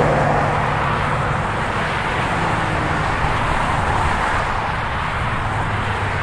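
Freeway traffic streaming past close by: a steady rush of tyres on the road with a low engine hum underneath.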